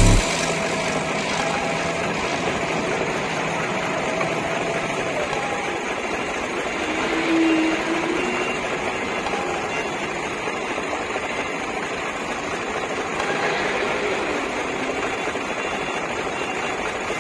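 Forklift engine running steadily under load while the forks lift a stack of veneer sheets off a flatbed trailer.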